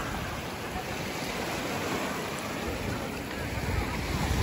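Small river waves lapping and washing up onto a sandy bank, a steady splashing wash of water. Low wind rumble on the microphone builds near the end.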